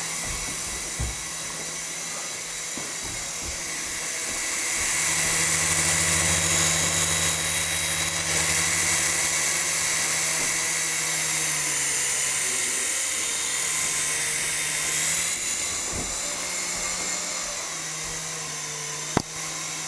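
Small electric RC helicopter in flight: a steady high-pitched motor whine with a low rotor hum, growing louder a few seconds in and easing off again near the end. A single sharp tap comes shortly before the end.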